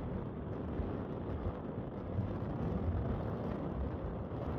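Hurricane wind buffeting the microphone: a loud, steady rumble of noise, heaviest in the lows, that cuts off suddenly near the end.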